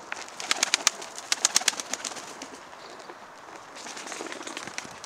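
Domestic tumbler pigeons pecking at feed in a tray: a flurry of quick, sharp beak clicks on grain and grit, thinning out to a softer rustle near the end.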